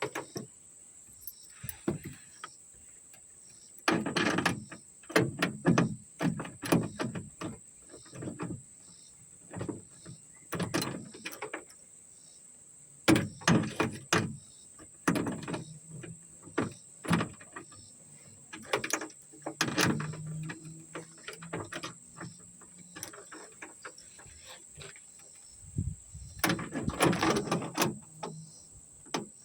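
Irregular clicks, clunks and rattles of hand tools and metal parts worked on a car's trunk latch, coming in clusters with short pauses. A faint steady high-pitched tone runs underneath.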